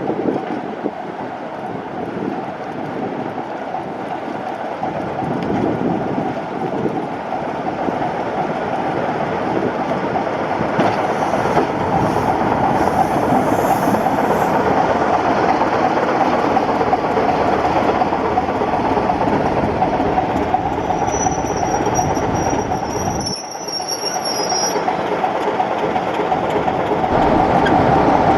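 Train running on the railway line, wheels rumbling and rattling over the rails and growing louder, with a high thin wheel squeal near the end.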